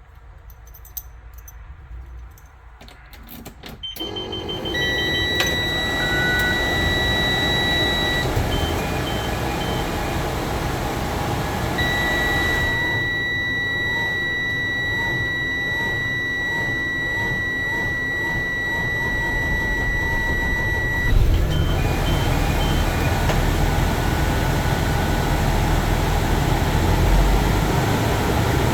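Cummins B6.7 diesel in a 2018 Thomas Saf-T-Liner C2 bus being cranked over a long stretch while a dashboard warning buzzer sounds steadily and chimes beep. The engine catches about three-quarters of the way through and settles into a low idle. The hard start is what a technician puts down to a failing starter motor.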